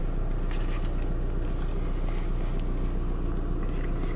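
Vehicle engine running steadily, heard from inside the cabin as a low, even hum.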